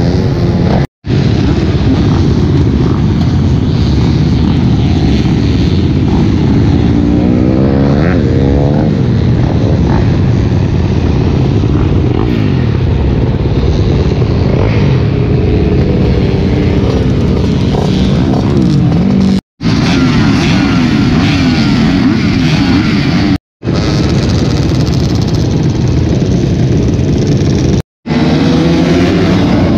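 Motocross bikes' engines running hard and revving, the pitch rising and falling as they accelerate and shift, loud, with four brief dropouts to silence.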